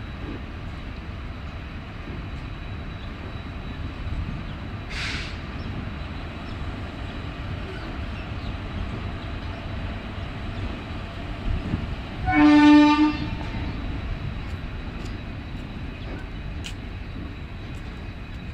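Indian Railways sleeper coaches rolling slowly past on the rails, a steady low rumble. There is a brief hiss about a quarter of the way through, and a short horn blast, the loudest sound, about two-thirds of the way through.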